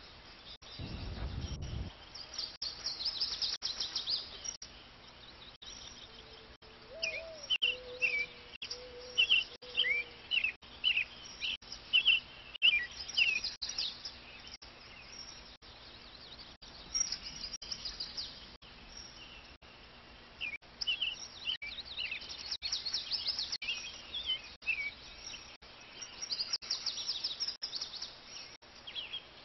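Birds chirping and calling: a busy run of short, sliding chirps mixed with high trills that come and go, with a few lower calls about eight seconds in. A brief low rumble sounds about a second in.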